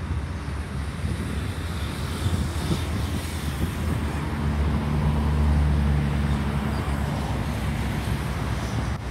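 Low steady rumble of engines with wind on the microphone. A steady engine hum swells about four seconds in and fades again near seven seconds.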